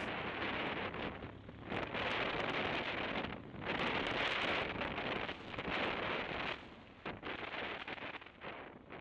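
Wind rushing over the microphone of a moving motorcycle at road speed, swelling and dropping every second or two and fading lower near the end.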